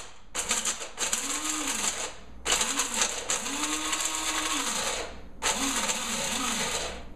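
Electric blade coffee grinder chopping whole almonds in several short pulses of a second or two each, the motor spinning up and winding down with each press. The almonds are being chopped coarsely rather than ground to a fine powder.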